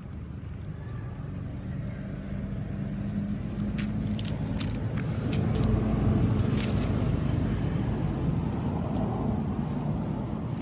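A motor vehicle's engine hum passing by, growing louder to a peak about halfway through and then fading. Short crackles of dry leaves sound in the middle.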